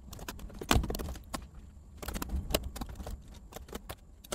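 Typing on a computer keyboard: quick, irregular key clicks, with one heavier key strike about a second in.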